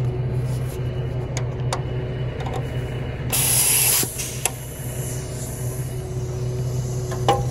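A short burst of compressed air hissing about three seconds in as a truck-to-trailer air hose coupling (gladhand) is connected, over the steady hum of the truck's idling engine, with a few light clicks of the hose fittings.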